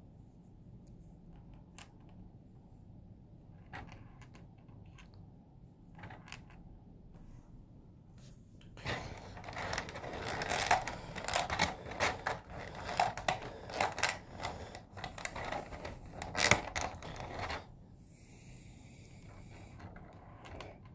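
Small plastic S.H.Figuarts spare hands being handled and set down on a table: a few scattered light clicks, then from about nine seconds in, some eight seconds of dense rustling and clicking of plastic.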